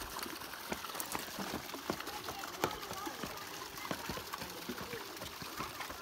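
Water trickling and splashing over rocks: a steady running hiss with many small, irregular splashes and drips.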